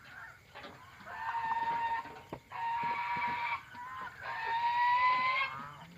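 Domestic chickens calling: three long, drawn-out calls in a row, the last rising in pitch near its end.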